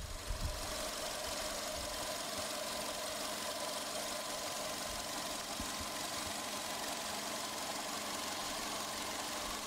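Volkswagen Jetta's 1.6-litre naturally aspirated inline-four idling steadily, with a faint steady whine over the engine noise.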